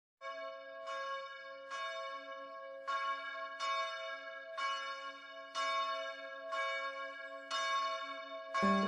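A church bell tolling, struck about once a second, each stroke ringing on into the next. Near the end a deeper, fuller sound comes in.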